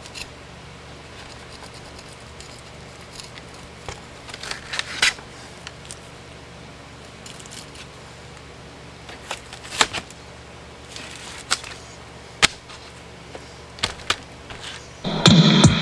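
Scattered knife scrapes, clicks and taps on a cutting board while small bluegills are filleted and skinned, over a faint steady hum. Guitar music comes in near the end.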